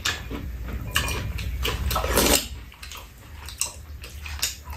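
Spoons clinking and scraping against a frying pan and bowls as fried rice is scooped up and eaten, in a string of short clinks with one longer scrape about two seconds in.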